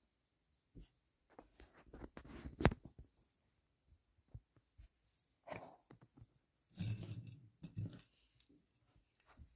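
Hot Wheels blister-card packaging and a small die-cast toy car being handled on a tabletop: irregular crinkling and clicking in three clusters, the loudest a little over two seconds in, with a few dull knocks near the end as the car meets the table.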